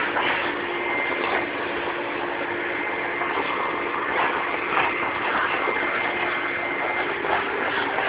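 Vacuum cleaner running steadily, its motor whine held at one pitch over a continuous rush of air.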